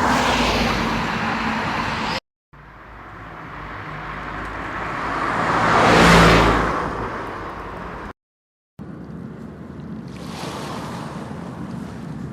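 A car passing by, growing louder for a few seconds and fading away, with steady wind or surf noise around it. Twice the sound drops out to silence for a moment.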